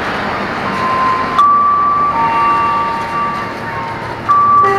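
KRL electric commuter train standing at the platform: a steady hum with held electronic tones, and a chime melody starting just before the end.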